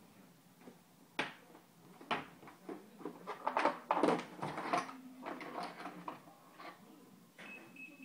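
Plastic tool case being opened: two sharp clicks as its latches snap open, then a burst of clattering and knocking as the lid swings open and the metal bicycle tools shift in their moulded plastic trays, followed by lighter knocks as they are handled.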